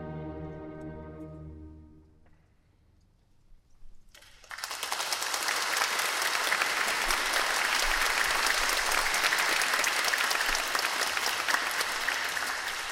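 An orchestra's final held chord fades away over about two seconds. After a brief hush, audience applause breaks out suddenly about four seconds in and keeps going.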